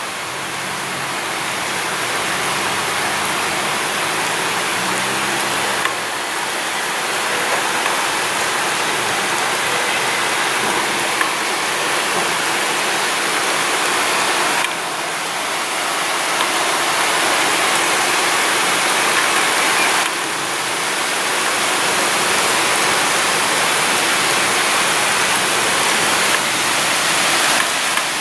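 Heavy thunderstorm downpour: a steady, dense hiss of rain.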